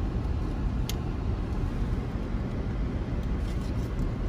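Steady low rumble of a car driving, heard from inside the cabin, with one sharp click about a second in.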